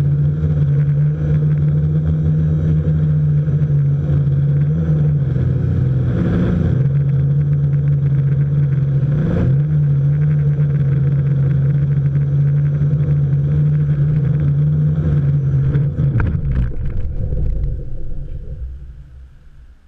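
A quadcopter's electric motors and propellers droning steadily, heard from a GoPro mounted on the frame, with a couple of brief wavers in pitch. About sixteen seconds in there is a hard landing: a cluster of knocks, after which the motors wind down and fade out.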